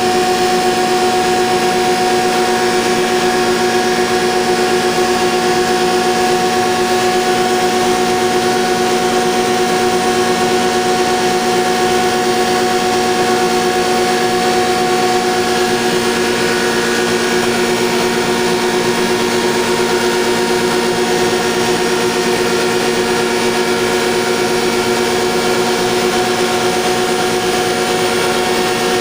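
Chilli powder grinding plant running steadily: a loud, constant machine hum with a few steady tones in it.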